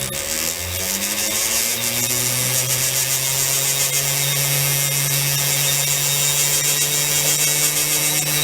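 Small lathe motor spinning up and then running steadily, with a fine stone rubbing along the spinning blue steel pivot wire to reduce its diameter slightly for a press fit.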